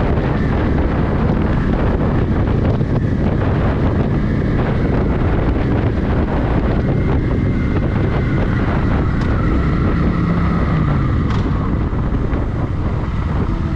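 Wind rushing and buffeting over the microphone of a motorcycle at cruising speed, mixed with road noise and the steady run of a Kawasaki Vulcan 900 Custom's V-twin engine. The rush eases slightly near the end.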